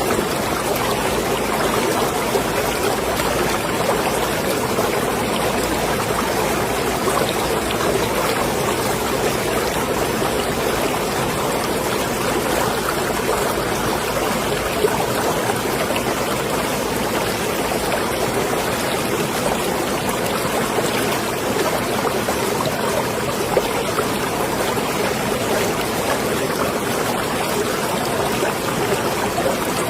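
Marina water moving and lapping, a steady rushing wash with a few faint splashes.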